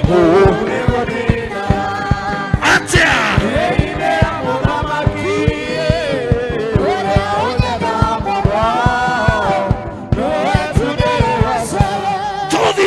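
Background music: sung vocals with choir-like singing over a steady beat.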